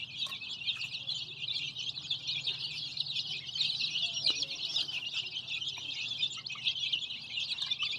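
A flock of dozens of baby chicks peeping continuously, with many high, short chirps overlapping into a dense chatter. A faint, steady low hum runs underneath.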